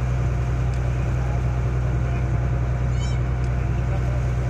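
Passenger boat's engine running steadily with a low drone. About three seconds in, a brief high squeak sounds over it.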